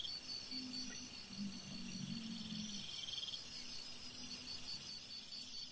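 Crickets and other night insects chirping in a steady, evenly pulsed trill, with a faint low drone under them for a couple of seconds near the start.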